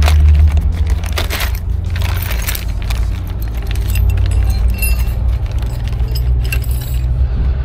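Metal brake parts and tools clinking and jangling as they are handled: a string of sharp clinks and knocks, heaviest about 1 to 2.5 seconds in and again near the end, over a steady low hum.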